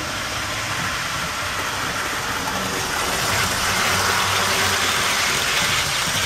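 Model trains running on the layout track: a steady whirr of the motors and the running of the wheels on the rails. It grows louder about three seconds in as a Bachmann Class 170 unit passes close by. The Class 170 runs quite noisily.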